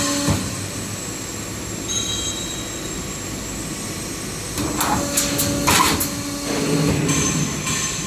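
HVAC duct auto line running: steady machine hum with a held whine, and a quick cluster of sharp knocks and hisses about five seconds in.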